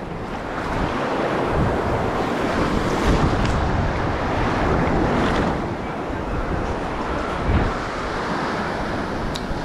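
Surf washing on a beach, with wind buffeting the microphone in a few low thumps. The rush swells over the first half, then eases a little.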